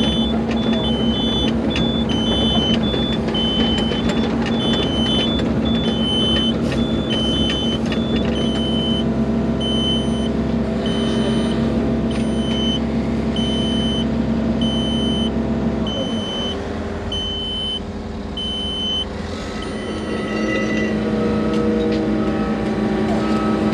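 A Hyundai hydraulic excavator's diesel engine runs steadily, with a machine warning beeper sounding short, evenly spaced high beeps. The beeping stops about 19 seconds in. The engine note shifts shortly before that, and a lower-pitched repeating beep takes over near the end.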